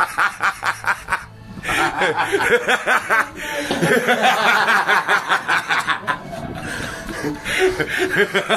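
Hearty male laughter: rapid, repeated snickering with a short break a little over a second in, then more laughing.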